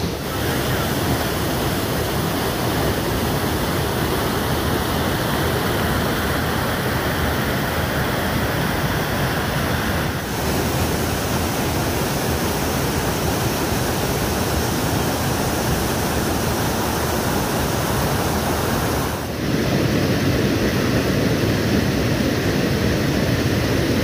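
Steady rush of a small waterfall pouring over rocks into a foaming pool, heard close up. The sound dips briefly about ten seconds in and again near the end, then comes back slightly louder.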